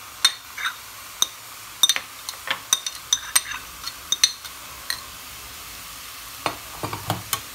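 A metal spoon clinks and taps repeatedly against a glass bowl as chopped green olives are scraped into a pan of vegetable filling, with a few duller knocks near the end, over the steady sizzle of the filling frying.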